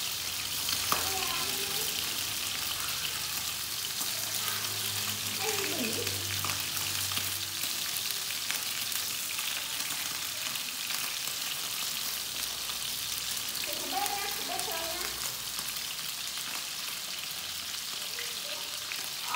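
Pork rib pieces sizzling steadily as they fry in a non-stick pan, stirred now and then, with a small click about a second in.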